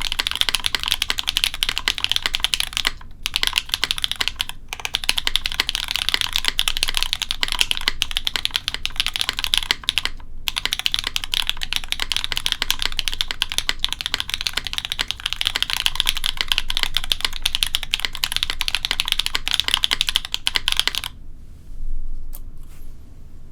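Fast, continuous typing on a J-02 mechanical keyboard with Gateron Deepping switches fitted with Cherry top housings on a carbon fiber plate. There are a few brief pauses. The typing stops near the end, leaving only a few scattered keypresses.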